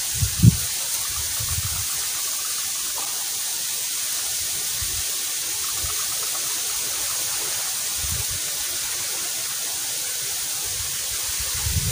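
A steady rushing hiss of outdoor background sound, with a short low thump about half a second in and a few fainter low thumps later.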